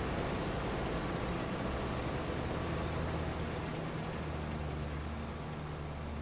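Farm machinery running steadily: a low engine drone under an even rushing noise.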